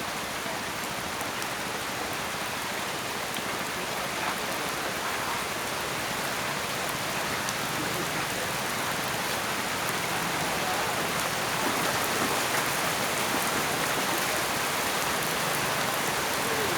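Steady rain falling, an even hiss that slowly grows louder.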